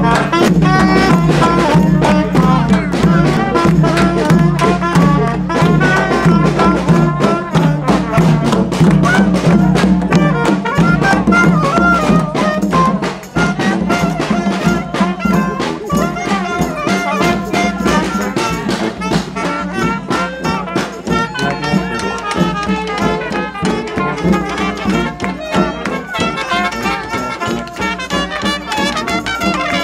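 Street band with trumpet and other brass playing an upbeat, jazzy tune over a steady drum beat. The music dips sharply for a moment about halfway through.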